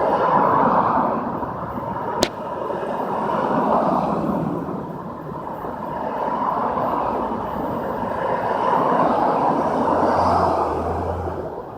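Street traffic noise, a steady rush that swells and fades several times as vehicles pass, with one sharp click about two seconds in.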